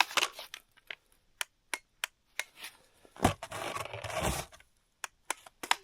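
Irregular sharp clicks, then a thump and a second or so of scraping and rustling, from handling a cordless power tool whose battery has died in the extreme cold.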